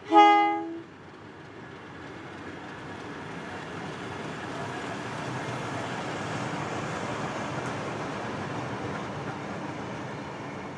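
A pair of light-engine diesel locomotives, led by ex-South Australian Railways Alco DL531 830-class 872, sounds a short multi-note horn blast lasting under a second. Then the engines and wheels rumble past, growing louder to a peak about six to seven seconds in and easing off as they go by.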